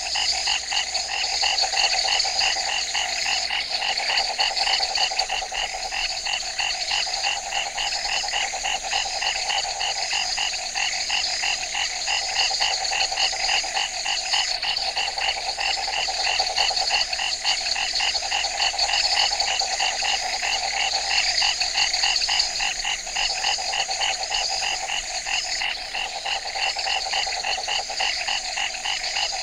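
Night chorus of many frogs calling without pause: fast, repeating calls at several pitches, from a low band up to high, shrill ones.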